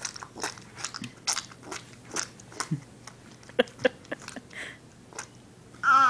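Irregular small clicks and taps of a picture book being handled by small hands, with a page turned. It ends with a short babbled squeal from a toddler.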